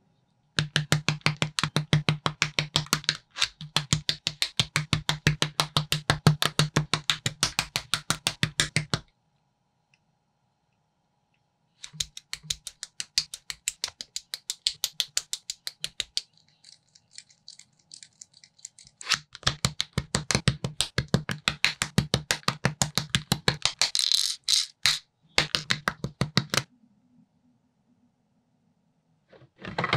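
Plastic building bricks being handled and pressed together in rapid, evenly spaced clicks, in several long runs broken by silent pauses.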